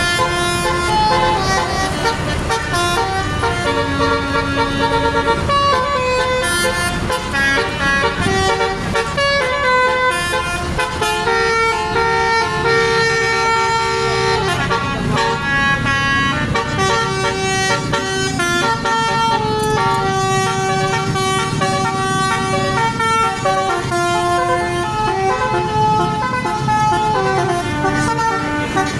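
A bus's basuri (telolet) multi-tone horn playing a tune, its notes stepping from pitch to pitch without pause, over engine and road noise.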